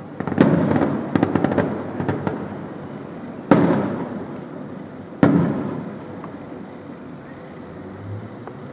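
Aerial fireworks shells bursting: a rapid cluster of crackling bangs in the first two seconds, then two single loud booms nearly two seconds apart, each rumbling away as it echoes.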